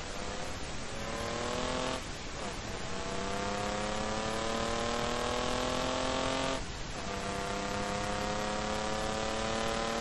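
Swapped BMW E28's engine accelerating hard through the gears. Its pitch climbs steadily, drops back with an upshift about two seconds in, climbs for about four seconds, then drops with another upshift just before seven seconds and climbs again. A steady rush of wind and road noise runs underneath.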